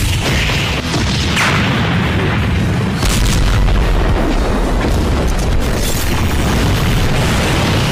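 Animated fight sound effects: deep booms and explosion-like impact hits over loud background music.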